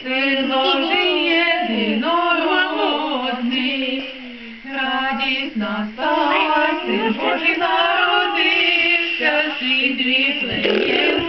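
A woman and boys singing a Ukrainian Christmas carol (koliadka) together, with a short pause between phrases about four and a half seconds in.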